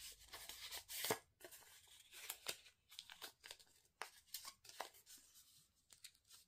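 Folded paper slip being unfolded and flattened by hand: faint, irregular paper crackles and crinkles, the loudest about a second in.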